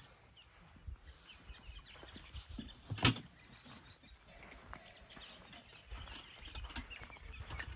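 Birds chirping in the background, with one sharp knock about three seconds in, the loudest sound, and low rumbling noise in the second half.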